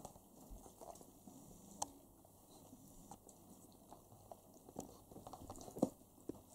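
German Shepherd mouthing and nibbling a puppy in play: faint chewing sounds with scattered small clicks, a sharper one about two seconds in and the loudest near the end.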